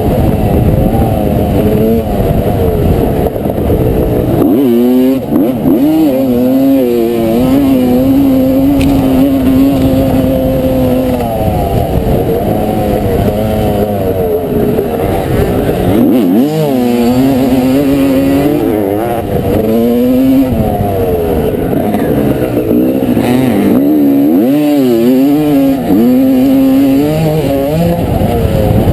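1989 Honda CR250R's two-stroke single-cylinder engine racing on track, revving hard, holding steady stretches and swooping up and down in pitch several times as the throttle is chopped and reopened through corners and gear changes, with wind rush over the microphone.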